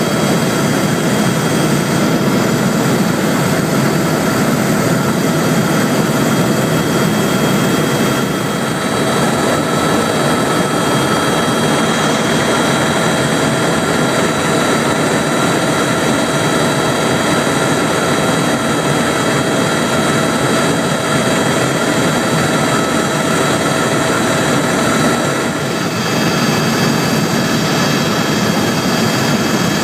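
Helicopter in flight heard from inside the cabin: a steady rush of turbine engine and rotor noise with several even, high whining tones running through it.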